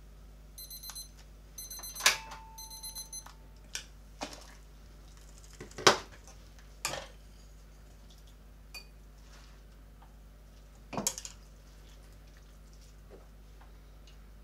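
Digital kitchen timer going off in three quick groups of high beeps, the noodles' cooking time up. Then several sharp metal knocks and clanks as a wire noodle strainer is lifted from the pot and the noodles are worked into a bowl with chopsticks.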